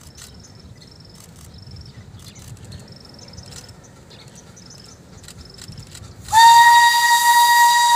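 Taiwan Sugar narrow-gauge steam locomotive sounding its steam whistle: one long, steady, hissing blast that starts suddenly about six seconds in. Before it, insects chirp faintly in a quick repeating rhythm.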